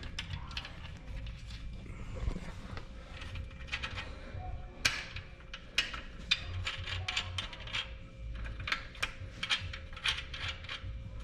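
Irregular metal clicks and clinks of hand tools and parts on an electric bike's rear wheel, coming in quick clusters, thicker in the second half, over a low handling rumble.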